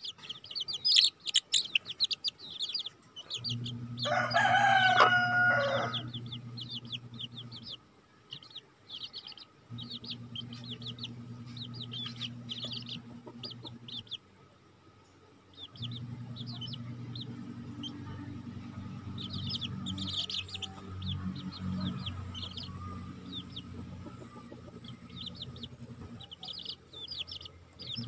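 Chicks peeping rapidly and constantly, with one louder, drawn-out chicken call about four seconds in. A low steady hum comes and goes underneath.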